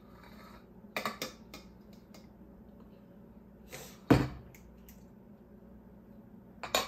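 A few scattered clicks and knocks from baking utensils and containers being handled: a couple of light clicks about a second in, and a louder knock with a dull thump about four seconds in.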